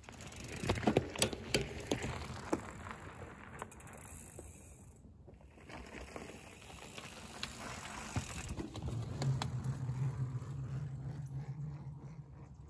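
Hardtail mountain bike riding by on a forest trail and wooden boardwalk: tyres rolling with a run of sharp mechanical clicks in the first few seconds, then a steadier low hum near the end.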